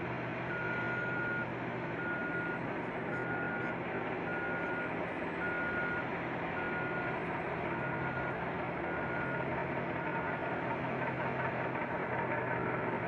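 A heavy mining machine's backup alarm beeping about once a second, nine beeps that stop about ten seconds in, over the steady running of big diesel engines from a LeTourneau L-1150 loader and CAT 785C haul truck at work.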